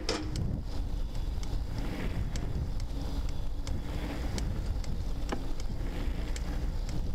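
Wind rumbling on the microphone of a camera moving along on a bicycle, with tyre noise on the wet path and scattered small clicks and rattles.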